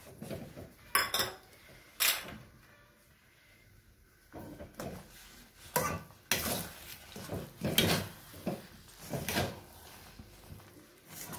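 Metal spatula scraping and knocking against a steel pan while stirring thick broken wheat kesari, with a few sharp clinks in the first two seconds and a run of scraping strokes later on.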